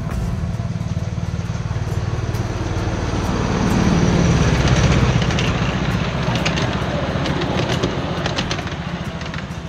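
A 7¼-inch gauge ride-on miniature train, led by a CN diesel-outline locomotive, passing close by, loudest as it goes past about four to five seconds in. The rumble of the running train carries sharp clicks from its wheels on the track.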